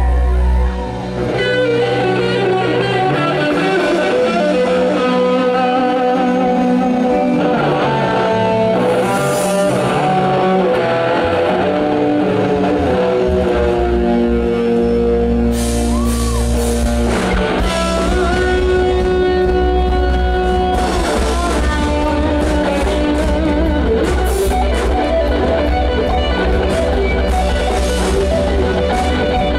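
Live rock music played loud through a PA: an electric guitar plays a melodic lead with long held notes over a steady low bass.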